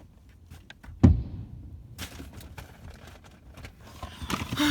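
A single deep firework shell burst about a second in, followed by faint scattered crackling.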